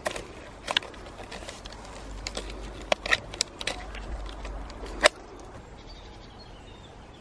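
Irregular clicks and clacks of a plastic trail camera, its strap buckle and a steel cable lock being handled and unfastened from a tree trunk. The clicks stop about five seconds in.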